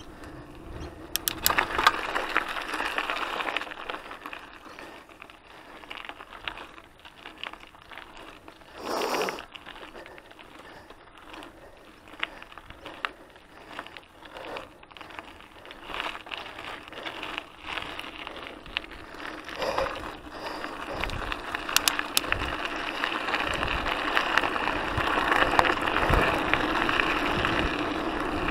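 Mountain bike riding over a dirt and gravel trail: tyre noise with frequent clicks and rattles from the bike over bumps, and a short loud burst of noise about nine seconds in. The noise grows louder and steadier over the last several seconds on the gravel path.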